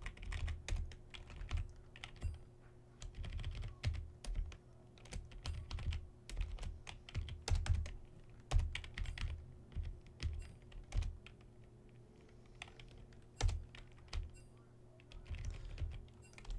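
Computer keyboard typing: irregular bursts of keystrokes with short pauses between them.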